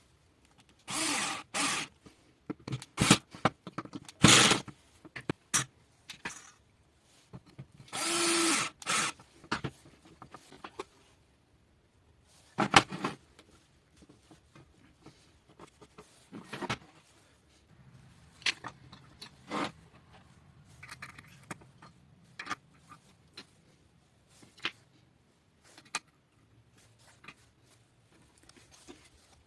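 Intermittent workshop noises from hand work on metal and plastic parts: two short bursts of scraping or drilling about a second long, one near the start and one about a third of the way in, among scattered clicks and knocks of parts being handled.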